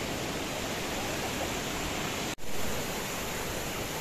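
Small waves washing onto a sandy shore, a steady rushing hiss that cuts out for an instant about two and a half seconds in.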